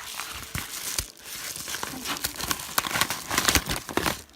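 Packaging crinkling and tearing as a mailed parcel is opened by hand, with a dense run of sharp crackles.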